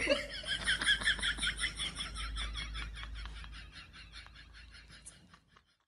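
A rapid run of short chirping calls, about five a second, loudest at the start and fading away over several seconds.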